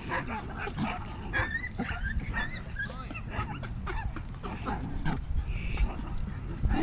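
Dogs barking and yipping in short bursts, with a few brief high whines mixed in, over a steady low rumble.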